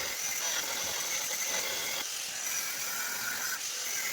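Angle grinder running steadily against metal, a dense grinding noise with a high motor whine.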